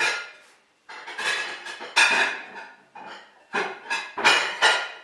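Plates and dishes clinking and clattering in a string of sharp knocks, as a plate is taken out from among other crockery.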